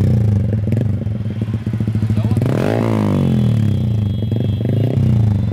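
Yamaha R15 V3's single-cylinder engine idling through a freshly fitted Daytona aftermarket exhaust. About two and a half seconds in there is one quick throttle blip that rises and falls back to idle.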